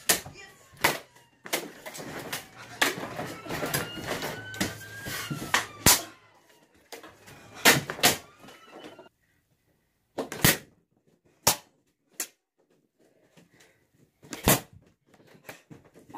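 Scattered sharp knocks and thumps, packed close together for the first six seconds, then a silent gap and a few single knocks spaced a second or more apart.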